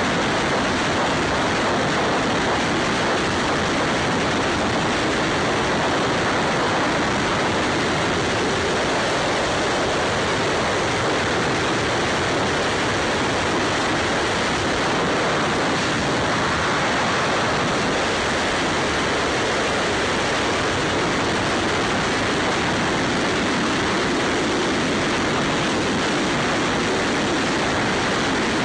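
Steady rush of wind and road noise on a motorcycle-mounted camera's microphone as a Ducati Scrambler cruises at speed, with no changes in pace.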